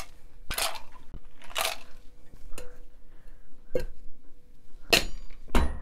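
Ice cubes being scooped and dropped into a metal cocktail shaker tin: a string of separate clatters about half a second to a second apart, with a heavier knock near the end.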